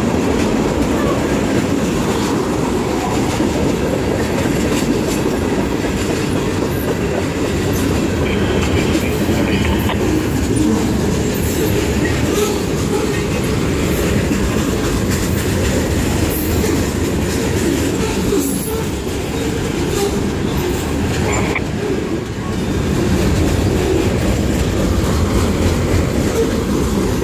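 Freight train cars rolling past close by: a steady heavy rumble and rattle of steel wheels on the rails, with a few faint brief high squeaks and clicks. The cars passing are tank cars and centerbeam flatcars loaded with lumber.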